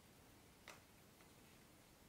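Near silence broken by a faint click as the Canon EF to Sony E-mount lens adapter is handled in the fingers, about two-thirds of a second in, and a fainter tick half a second later.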